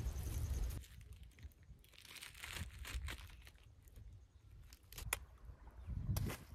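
Plastic bag crinkling and rustling as it is handled, with a couple of sharp clicks near the end. A low rumble fills the first second.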